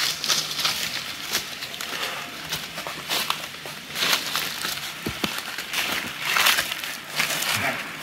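Footsteps crunching irregularly through dry leaf litter and twigs on a forest trail, with some louder crunches about four seconds in and again a couple of seconds later.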